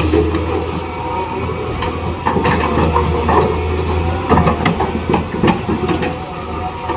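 Small electric gear motors of a toy RC excavator running with a steady low hum, with irregular plastic clicking and clattering.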